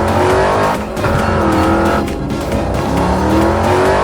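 Car engine revving, its pitch rising in two sweeps, over background music.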